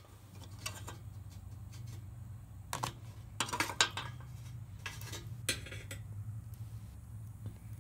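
Light metallic clinks and taps around a galvanized charcoal chimney starter, coming irregularly with a small cluster midway, over a steady low hum.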